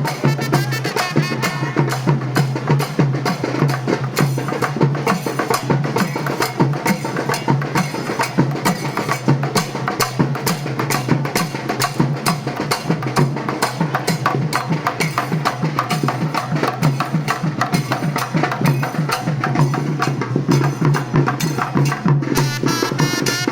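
Traditional Sri Lankan procession drumming: many hand drums and percussion struck in fast, dense, continuous rhythms, over a steady low tone.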